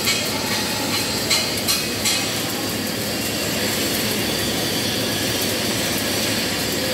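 Flux-cored arc welding (FCAW) arc burning steadily with a crackling hiss. A few sharper pops come in the first two seconds.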